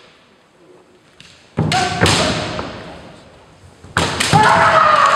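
Kendo fencers' kiai shouts and shinai bamboo swords striking armour, in two sudden exchanges about a second and a half in and about four seconds in, echoing around a large sports hall.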